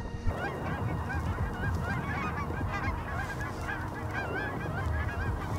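A flock of Canada geese honking: many short, overlapping honks, starting about a third of a second in.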